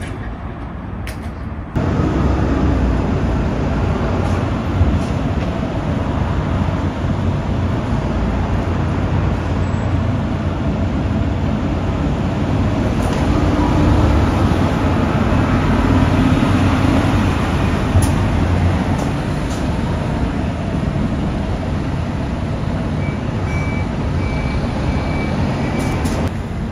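Steady road traffic at a station bus terminal, buses and cars running with a continuous low rumble. Near the end there is a short run of evenly spaced high beeps.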